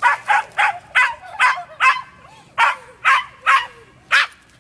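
A dog barking excitedly in a rapid string of short, sharp barks, about ten of them, with a brief pause around two seconds in.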